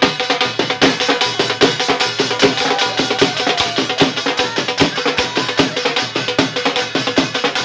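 A dhol, the double-headed barrel drum, beaten with sticks in a fast, driving bhangra rhythm of dense, even strokes.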